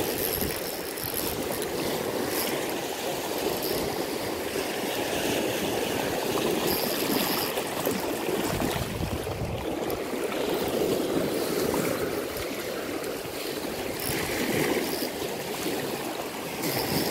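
Lake water splashing and churning at the surface as a hooked striped bass thrashes close to the bank.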